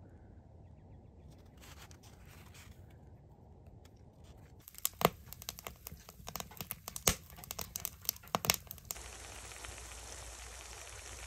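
Split logs burning in a wood stove, crackling and popping in sharp cracks, after a few seconds of faint low background noise. In the last couple of seconds the crackling gives way to a steady high sizzle of eggs frying in a cast-iron skillet.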